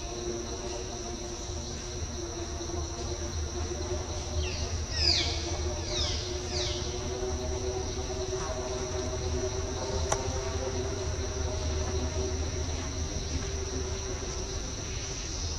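Insects droning steadily at a high pitch over a low steady hum, with a few quick falling chirps about five seconds in and a single click near the end.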